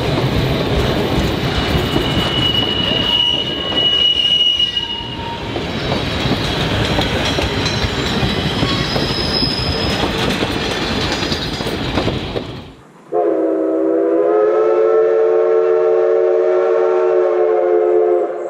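Passenger cars of a steam train rolling past close by: a steady rumble of wheels on rail with brief high wheel squeals. After a sudden cut about thirteen seconds in, the locomotive's steam whistle blows one long, steady blast of about five seconds.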